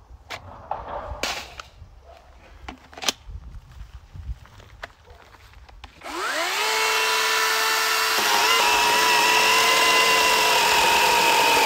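A few sharp clicks and knocks, then about six seconds in a cordless electric chainsaw's motor spins up with a rising whine and runs steadily at full speed. It is running on a freshly swapped battery pack and kicks straight in, where the previous warm pack kept making it stop.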